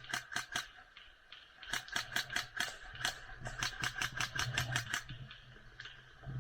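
Airsoft guns firing in rapid, uneven volleys of sharp clicks: a short string at the start, then a longer run of shots that stops about five seconds in.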